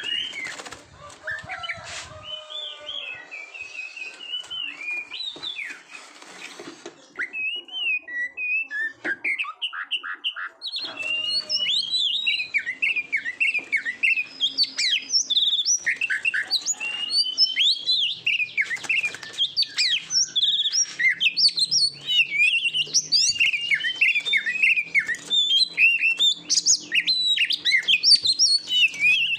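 Oriental magpie-robin (kacer) singing a long, varied song of quick whistled phrases. The song grows denser and louder about a third of the way in.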